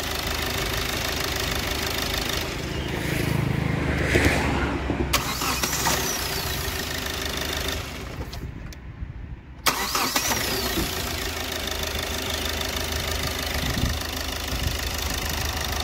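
Hyundai Verna common-rail diesel engine, warmed up, running, then going quiet for a moment a little after eight seconds and firing up again with a sudden start about ten seconds in, settling back to a steady idle. This is a hot restart after an engine overhaul, and it catches readily.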